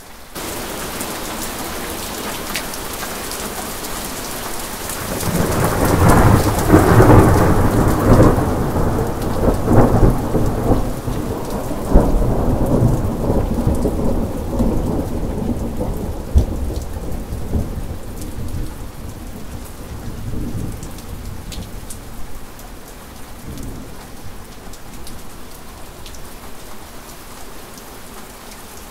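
Steady rain that turns suddenly louder at the start, with a long roll of thunder. The thunder builds about five seconds in, crackles and rumbles loudest over the next several seconds, then slowly dies away while the rain carries on.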